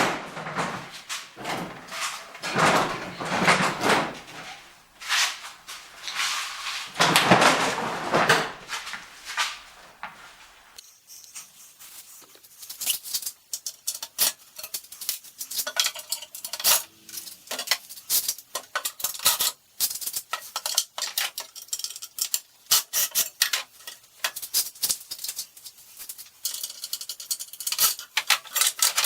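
Steel parts and hardware of a display rack being handled and taken apart. There are several long scraping, clattering swells for the first ten seconds or so, then many quick, light metallic clinks and rattles.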